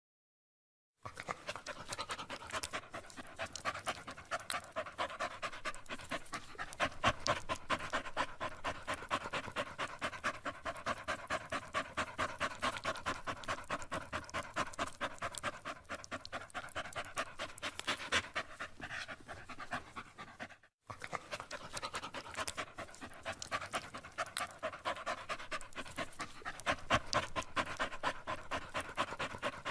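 A tired dog panting, fast and regular, the quick in-and-out breaths continuing steadily. It starts about a second in and breaks off for a moment about two-thirds of the way through.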